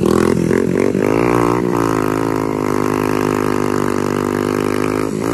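Small motorcycle engines revved hard under load while a rear wheel spins in mud; the revs are uneven at first, then settle into a steady high drone about two seconds in.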